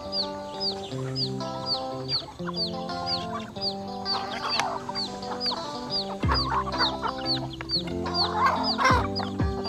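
Chickens clucking over background music with held melodic notes, the clucking coming in bursts about halfway through and near the end; a short high chirp repeats about twice a second.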